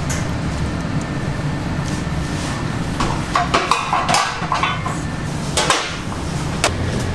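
Bakery kitchen work sounds: a steady low hum of equipment, with scattered knocks and clatter, the busiest run about three to four seconds in.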